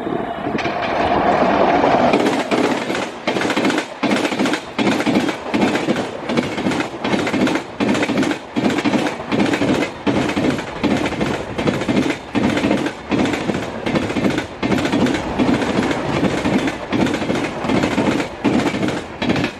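Humsafar Express passenger coaches passing close at speed: a loud rushing rumble with a steady clatter of wheels over rail joints, a beat about every half second.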